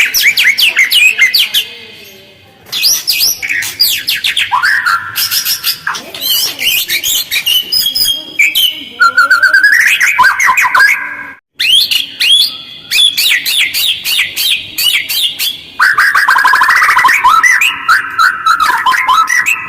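White-rumped shama (murai batu) singing a loud, fast run of harsh chirps, trills and sweeping whistles, phrase after phrase with only short pauses between them. This is a lure song meant to provoke other shamas into answering.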